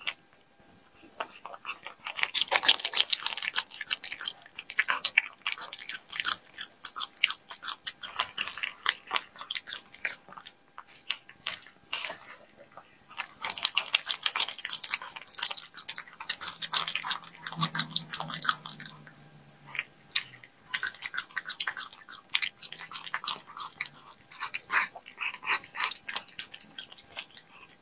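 Cat chewing and licking raw meat chunks close to the microphone: wet smacking and many sharp clicks, coming in bouts of a few seconds with short pauses. A brief low hum sounds about midway.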